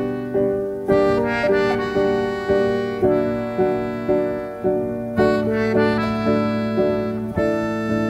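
Melodica playing a melody of held reedy notes over a piano accompaniment of evenly repeated chords, about two a second, each struck and then fading.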